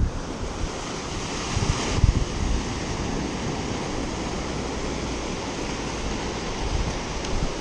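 Surf breaking and washing up a sandy beach, a steady rushing hiss, with wind buffeting the microphone in low gusts, strongest about two seconds in.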